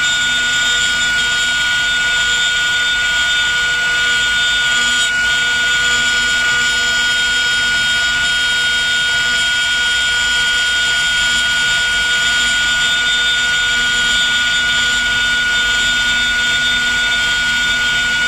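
Spindle of an HTG6090 4-axis CNC router running at a constant speed, a steady high-pitched whine, while its carving bit machines a wooden blank turning on the rotary axis.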